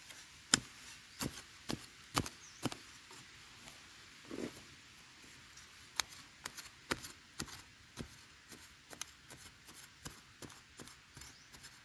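A digging tool striking and scraping into dry earth in irregular strokes, roughly one to three a second, as a wild yam tuber is dug out. The strokes are sharper and louder in the first few seconds, then come quicker and fainter.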